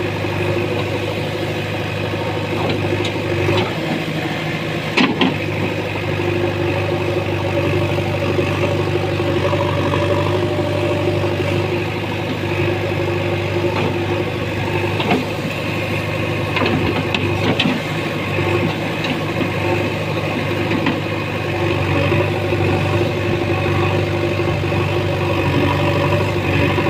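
JCB 3DX backhoe loader's diesel engine running steadily, with a few sharp knocks about five seconds in and again later on.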